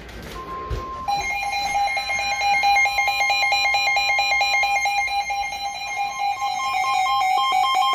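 Weather radios going off for a severe thunderstorm warning: the NOAA Weather Radio warning alarm tone, a steady single tone, starts about half a second in, and about a second in a radio's own alert alarm joins it with fast, evenly pulsing electronic beeps.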